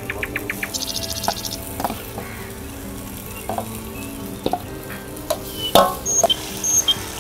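Marinated chicken pieces going into hot oil in an aluminium kadai and sizzling, with a metal spatula scraping and knocking against the bowl and pan in scattered sharp clanks, the loudest about six seconds in.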